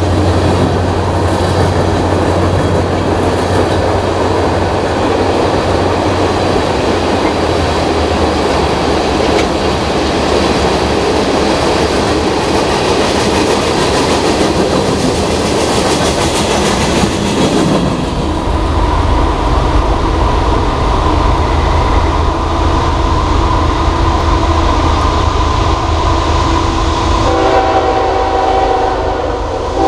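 Freight train's flatcars rolling past on the rails with a steady clattering rumble that drops away a little over halfway through. Near the end an approaching locomotive's horn sounds, a chord of several notes held together.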